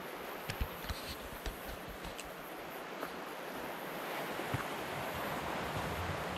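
Steady wash of sea surf and wind, swelling slightly past halfway, with a few sharp light ticks in the first couple of seconds.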